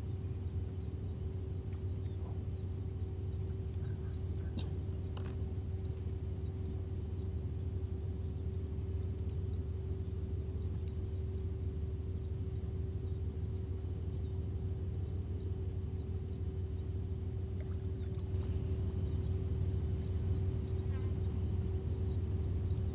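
Outdoor lakeside ambience: a steady low rumble with a steady hum over it, and many short, high chirps scattered throughout.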